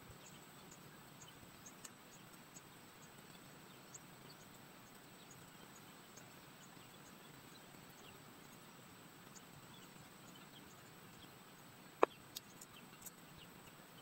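Faint background hiss with a thin, steady high-pitched tone and scattered faint ticks. One sharp click about twelve seconds in, followed by a smaller one.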